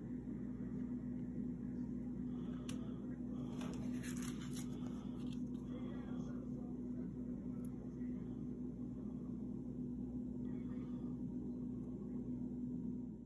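Steady low hum with a constant tone, with a short patch of light rustling and clicks of card stock being handled about three to five seconds in.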